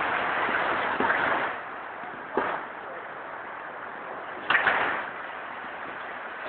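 Robotic basket-loading line with Codian D2 XXL delta robot arms at work: a steady machine hiss that drops away about a second and a half in, a sharp clack about two and a half seconds in, and a short double burst of hissing a couple of seconds later.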